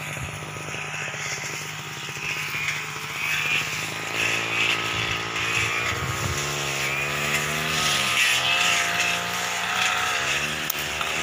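Brush cutters running while cutting scrub. Their engine note holds steady at first, then rises and falls repeatedly with the throttle from about four seconds in.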